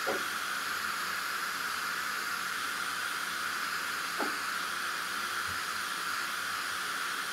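A steady, even hiss, with a faint click just after the start and another about four seconds in.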